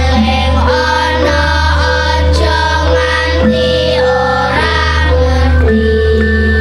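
Children's choir of girls singing a song in Javanese in unison, the melody moving note by note, over accompaniment with a steady low bass.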